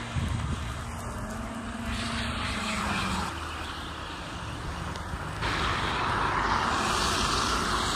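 City street traffic noise: a car engine's low hum with steady road hiss, changing abruptly twice as the shots cut, the last part a louder, even hiss.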